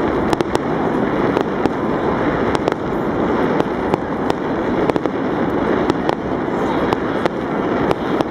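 Fireworks going off in quick succession: a continuous dense din with sharp cracks standing out about twice a second at irregular intervals.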